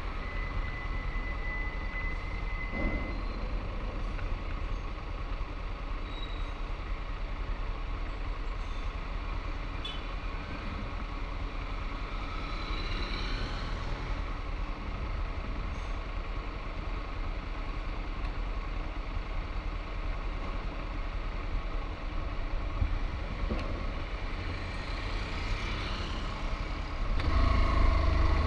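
Steady road traffic noise: vehicles running with a constant low rumble, growing louder near the end as a vehicle comes closer.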